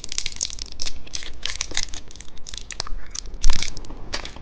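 Plastic candy packaging crinkling and crackling as it is handled, in a rapid run of small crackles with one louder rustle about three and a half seconds in.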